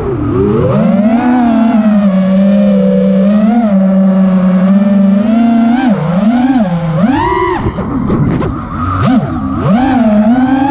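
FPV freestyle quadcopter's brushless motors and propellers buzzing, heard from on board. The pitch holds steady for a few seconds, then swoops up and down several times from about six seconds in as the throttle is punched and cut.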